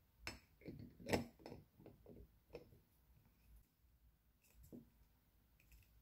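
Black screw-top lid being fitted and tightened onto a glass jar: a quick run of sharp clicks and knocks in the first few seconds, the strongest about a second in, then a few fainter clicks near the end as the lid is twisted down hard.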